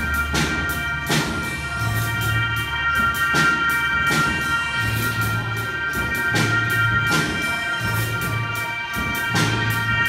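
Music played by a robotic machine band: a held chord over a bass line that changes note about once a second, with drum and cymbal hits at a steady pulse.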